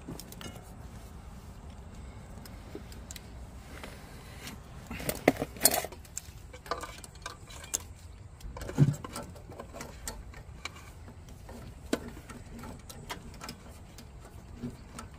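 Scattered clicks, small knocks and rustles of hand work on wiring and connectors, with a louder cluster of knocks about five to six seconds in and another near nine seconds.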